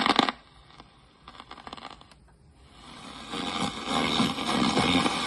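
Scratchy crackle and scattered clicks from a stylus in a vinyl record's lead-in groove on a TEAC GF-300 record player, then the record's music starting about three seconds in and growing louder.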